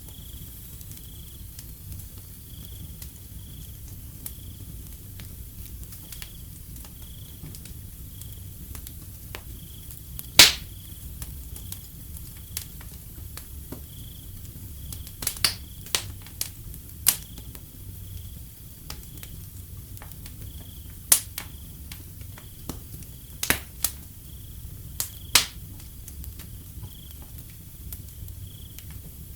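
Wood fire crackling, with scattered sharp pops, the loudest about a third of the way in and a cluster in the second half, over a steady high, evenly pulsed chirping of crickets.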